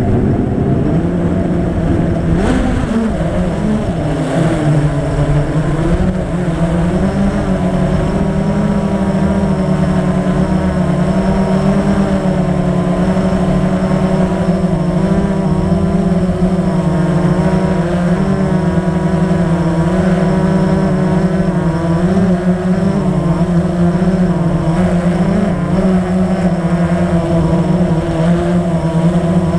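Blade 350 QX quadcopter's electric motors and propellers running, heard close up from the camera mounted on the drone. The whine wavers and shifts in pitch during the first few seconds, then settles into a steady hum as the drone flies low.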